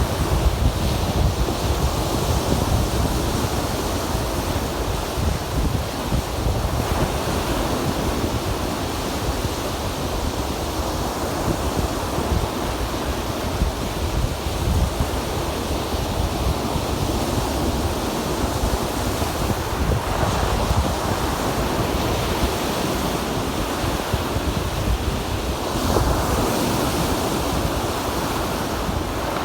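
Lake Erie waves breaking and washing on the shore in a steady surf, with wind buffeting the microphone as a low rumble. The wash swells louder a couple of times, about two-thirds of the way in and again near the end.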